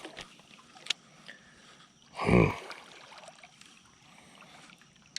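A single short, dull thump about two seconds in, against quiet river background.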